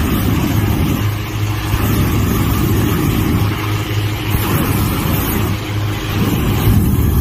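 Petrol-engined balloon inflator fan running steadily at full speed with a constant low hum and a slight regular surge, blowing cold air into a hot air balloon envelope during cold inflation.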